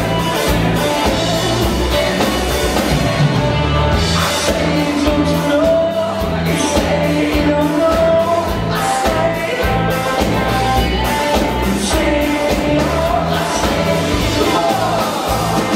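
Indie rock band playing live and loud: electric guitar and drums with singing, a steady beat throughout.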